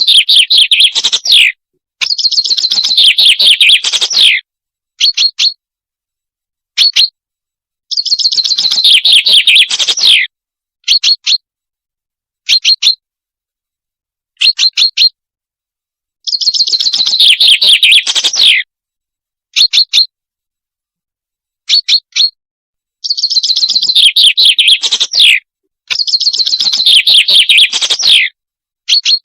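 Recorded song of the bird called صلنج, played as a hunting lure: phrases of about two seconds made of rapid high notes that fall in pitch, alternating with short single or paired high calls, repeated over and over.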